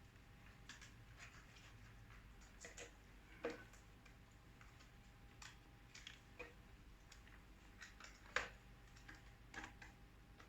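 Faint, scattered clicks and taps of plastic laptop parts being handled as a replacement keyboard is fitted into an MSI GE60 laptop, with the sharpest click about eight seconds in.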